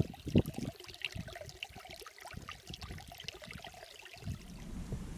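Small, shallow moorland stream trickling over a rock lip, a steady patter of many tiny splashes.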